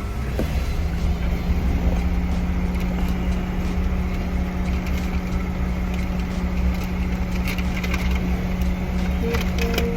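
Car cabin noise: a steady low rumble with a steady hum that comes in about a second in, and a few light clicks near the end.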